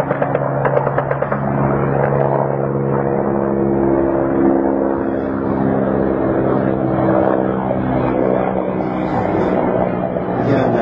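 Helicopter in flight: a steady drone of rotors and engine, carrying several held humming tones.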